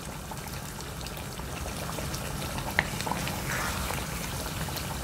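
Mutton and taro curry simmering in a pot, its thin gravy bubbling steadily. A few small clicks and scrapes of a wooden spoon stirring it come past the middle.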